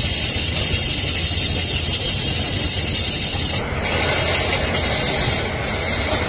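Hand-held cutting tool shaving the outside of a cast aluminium kadhai spinning on a lathe: a steady, high scraping hiss over the lathe's low hum. About three and a half seconds in the hiss drops away, then comes back in two short touches.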